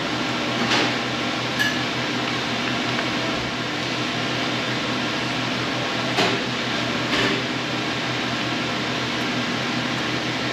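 Steady mechanical hum, like a fan or ventilation unit running, with a few brief soft knocks or rustles.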